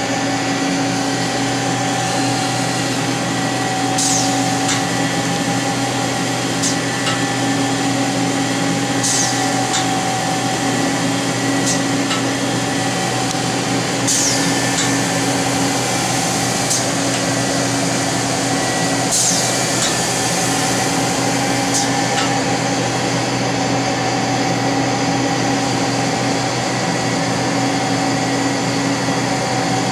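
Hardinge GT27 CNC lathe running, a steady machine hum with several held tones. A brief high-pitched sweep repeats about every two and a half seconds through the first two-thirds and then stops.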